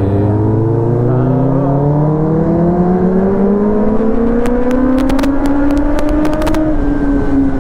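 Kawasaki ZX-10R's inline-four engine accelerating hard, its pitch climbing steadily for about six seconds and then easing slightly near the end, with wind noise as the bike picks up speed.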